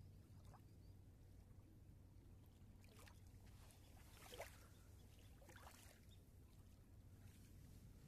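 Faint lapping of small ripples against a calm riverbank, with a few soft splashes; the loudest comes about halfway through. A low steady hum runs underneath.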